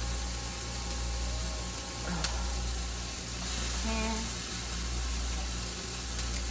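Cheesesteak filling sizzling in a hot pan on the stove, a steady frying hiss, with a light click about two seconds in.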